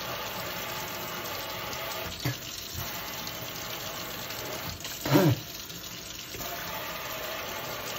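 Kitchen tap running steadily into a stainless steel sink. A brief pitched sound that rises and falls cuts in about five seconds in.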